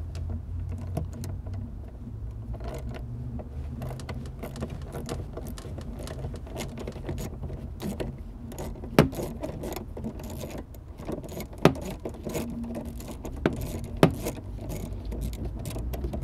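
Socket wrench working on a 10 mm bolt under a car's dashboard: quick, irregular metallic clicking and clinking, with a few louder knocks about nine, twelve and fourteen seconds in.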